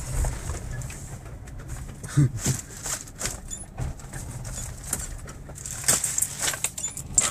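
Four-wheel drive's engine running low under steady hum while it crawls a rough bush track, with repeated sharp knocks and rattles as it bumps over the ground.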